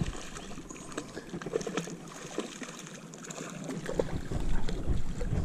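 Small splashes and drips of water and light handling noise as a landing net is worked at the lake's edge. Wind rumbles on the microphone at the start and again from about four seconds in.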